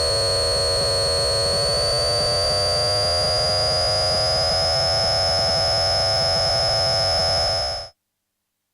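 Analog synthesizer warp sound effect: a sustained high tone and a lower tone glide slowly upward together over a low rumbling noise, then cut off sharply near the end.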